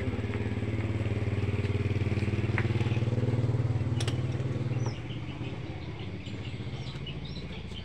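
A motorcycle engine idling with a steady, even pulse. It drops in loudness about five seconds in and keeps running more quietly.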